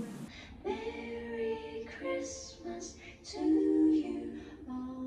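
A woman singing a slow melody in short phrases of long held notes, with no clear accompaniment.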